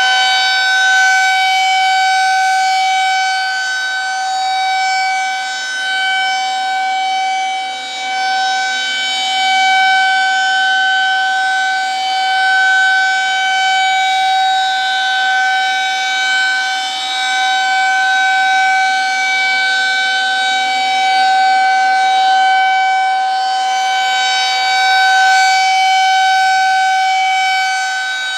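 Federal Signal 2001-SRNB electromechanical rotating warning siren sounding a steady tone during its monthly test. The pitch holds steady while the loudness swells and fades every few seconds as the rotating head turns.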